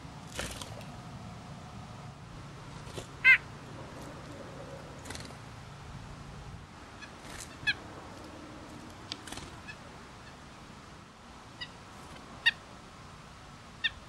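White-breasted nuthatch giving short single calls, about four of them a few seconds apart, the loudest about three seconds in, with a few soft knocks in between.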